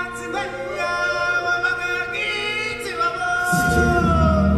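Stage-show vocal music: singers holding and gliding between long notes over an accompaniment, with a deep bass and drum part entering near the end.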